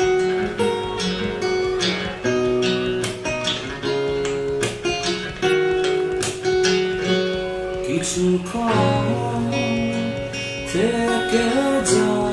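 Guitar strummed in chords through a small practice guitar amplifier, as a sound test of the amp's clean tone.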